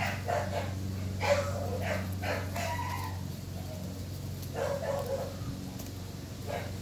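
Short animal calls coming and going every second or so over a steady low hum.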